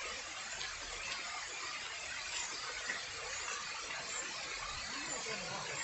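A small brook running steadily, a continuous hiss of flowing water.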